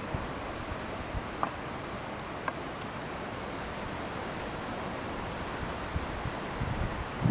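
Outdoor background hiss with a faint high insect chirp repeating about twice a second, and a few soft clicks.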